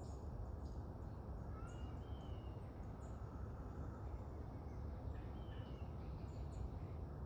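Small birds chirping: many short, high, thin notes, with a longer sliding whistled call about two seconds in and another about five and a half seconds in. Under them runs a steady low rumble of outdoor background noise.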